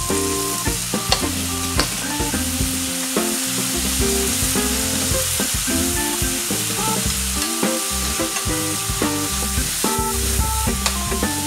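Ramen noodles, sausages and vegetables sizzling as they are stir-fried in a hot frying pan, with a few sharp clicks of utensils against the pan.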